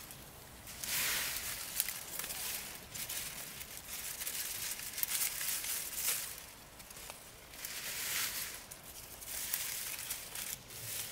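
Rustling and crunching of dry plant material in uneven swells, with a few sharp clicks.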